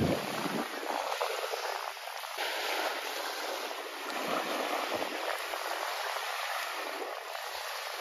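Small waves washing on the beach, a steady wash of noise.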